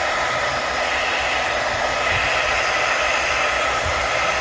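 Heat gun running steadily on low heat, blowing air over freshly poured epoxy resin to pop the surface bubbles.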